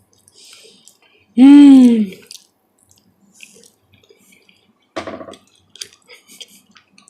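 Close-miked eating of chicken: quiet chewing and lip-smacking clicks, with one sharper, louder one about five seconds in. About a second and a half in, the eater makes one short, loud vocal sound that rises then falls in pitch.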